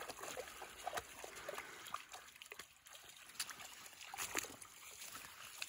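Faint splashing of dogs and a person wading through shallow floodwater, with scattered short splashes from footsteps, a few of them clustered near the end.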